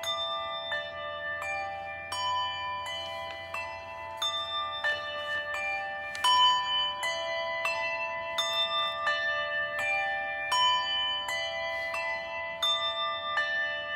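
Several bells of different pitches struck over and over, about two strikes a second, each tone ringing on and overlapping the next. They are rung as a memorial toll, each ring standing for a thousand people dead of Covid.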